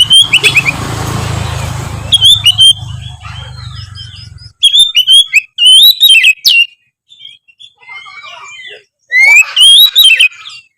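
Oriental magpie-robin (kacer) singing: loud bouts of rich, sliding whistles and chirps broken by short pauses. A low steady rumble sits under the song for the first four seconds or so.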